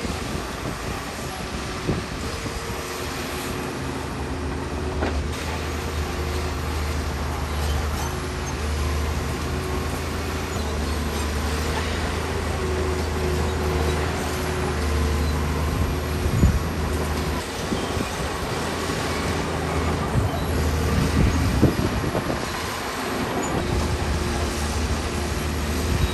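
LiuGong 160C crawler bulldozer's diesel engine running steadily under work, with the clatter of its tracks and a few sharp knocks along the way.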